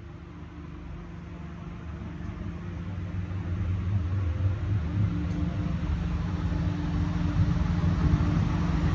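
Steady mechanical hum of a running motor, low and even in pitch, growing gradually louder.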